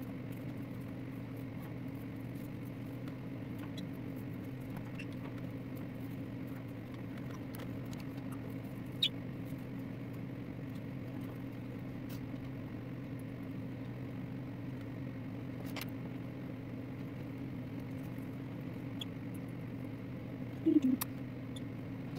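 Steady low room hum with a few faint small clicks and one short, high, falling chirp from a small pet bird about nine seconds in; near the end comes a brief louder low sound.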